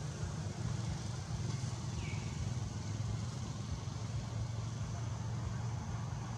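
Steady low engine rumble of motor traffic, with one short high chirp about two seconds in.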